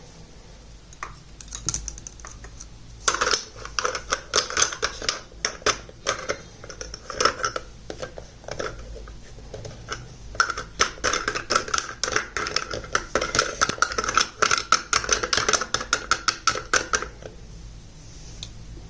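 Rapid, irregular clicking and rattling of small hard plastic toy kitchen pieces being handled, starting about three seconds in and stopping a couple of seconds before the end.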